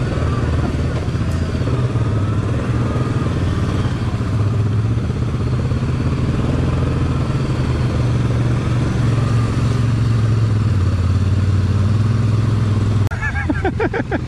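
ATV engine running at a steady, even speed, then dropping away abruptly about a second before the end, when a voice begins.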